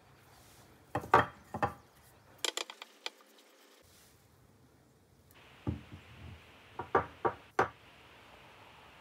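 Light knocks and clinks from a glass bottle, a paint brush and the coin bank's parts being handled and set down on a work table, in two short clusters: about a second in, and again near the end.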